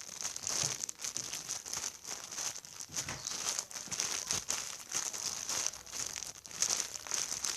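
Plastic packaging crinkling and rustling in irregular bursts as a squishy toy in its bag is handled.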